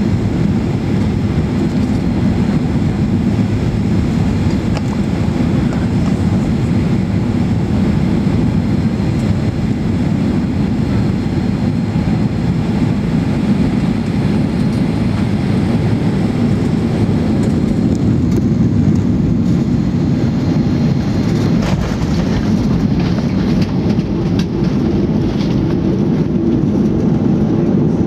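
Boeing 737-800 cabin noise heard from a seat over the wing on final approach: a loud, steady rumble of engines and rushing air. About two-thirds of the way through come a few sharp knocks as the main wheels touch down and the jet rolls onto the runway with its spoilers deployed.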